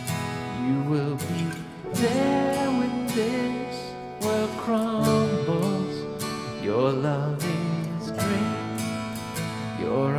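A man singing a worship song to his own strummed acoustic guitar, the voice rising and wavering on held notes over steady chords.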